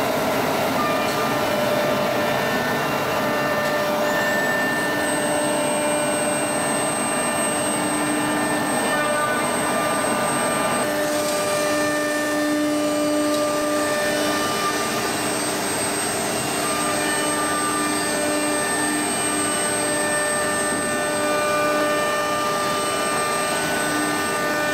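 CNC router on a furniture panel line running, with steady machine and extraction noise under it. A high, thin spindle whine rises about four seconds in and then holds steady.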